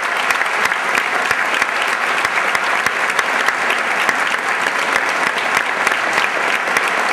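Audience applauding: a dense, steady clatter of many hands clapping after a choral performance.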